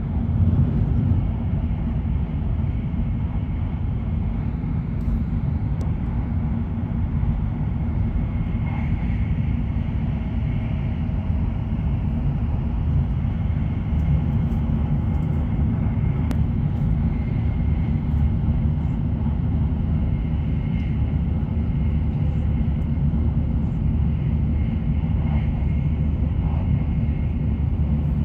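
Running noise of a Hokuriku Shinkansen E7/W7-series train at speed, heard inside the passenger cabin: a steady low rumble with a fainter rushing hiss above it.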